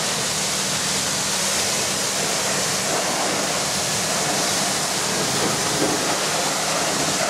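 Pressure washer wand spraying the underside of a John Deere combine harvester: a steady hiss of high-pressure spray, with a faint steady low hum underneath.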